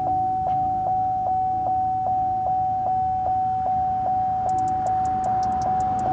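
Vehicle warning chime sounding over and over, one steady pitched ding about two and a half times a second, typical of a truck's door-open or key-in-ignition chime. From about four and a half seconds in, a run of quick light clicks joins it.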